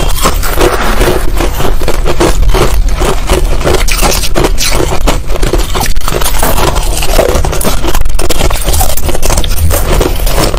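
Finely crushed ice being chewed close to the microphone: a dense, continuous run of crisp crunches.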